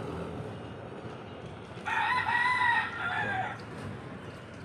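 A rooster crowing once, a single call of about a second and a half starting about two seconds in.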